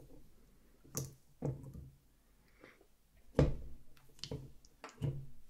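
Long false nails poking into clear slime in a jar, making about five separate short squishy pops and clicks, the loudest about halfway through.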